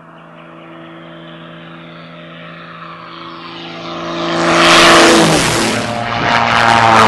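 Extra 300L aerobatic plane's piston engine and propeller droning as it comes in low, growing louder and peaking about five seconds in as it passes close, with the pitch dropping. Near the end, the louder drone of a Cessna 337 Skymaster's twin propeller engines in another fly-by.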